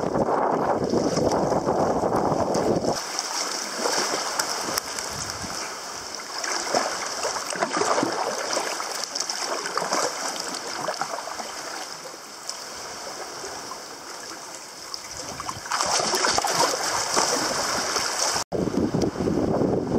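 Seawater sloshing and gurgling around a sea kayak's hull and against nearby rocks. Wind buffets the microphone for the first few seconds and again near the end.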